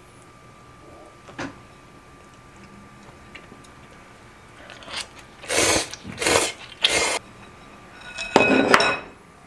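Chopsticks scraping and clinking against a ceramic ramen bowl: three short scrapes a little past the middle, then a longer scrape with a ringing clink near the end.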